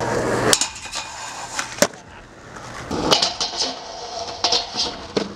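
Skateboard riding: wheels rolling on asphalt with a rough hiss, broken by several sharp clacks as the board is popped and lands, and scraping as it grinds on the metal grind rail.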